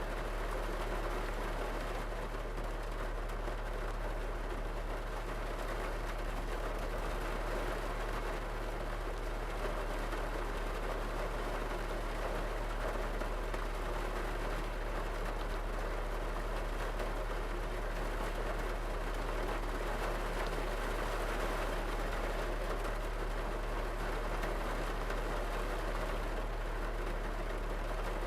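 Steady rain drumming on a car's roof and windows, heard from inside the car, with a constant low hum underneath.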